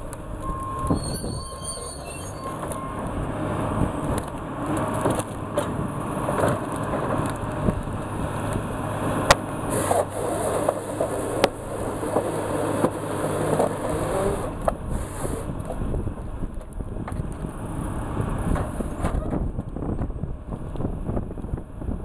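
John Deere tracked forestry processor working: the diesel engine runs steadily under load while the processor head grips and strips pine stems among the slash. Wood cracks and snaps throughout, with two sharp cracks about nine and eleven and a half seconds in.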